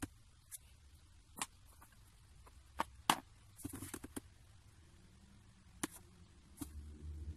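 Sparse light clicks and taps from handling a brush and the painting board while signing a finished oil painting, with a faint low hum near the end.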